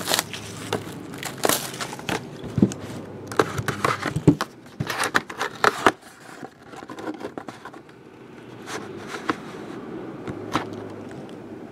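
Photographs being handled and shuffled: rustling with scattered light clicks and taps, busiest in the first half.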